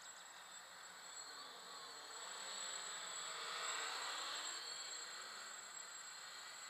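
Small multirotor drone's electric motors and propellers buzzing as it flies past, growing louder to a peak about halfway through and then easing off, the pitch wavering as the motors change speed.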